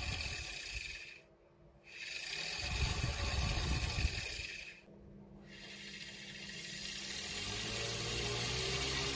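Homemade belt-driven fan running, its three small DC motors and propeller making a whirring hiss. The sound falls away almost to nothing twice and comes back each time. A steady low hum comes in near the end.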